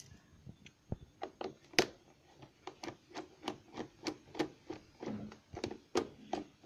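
Phillips screwdriver working out the screws of a motorcycle's air filter box cover: a run of small, irregular metal clicks and scrapes, two or three a second.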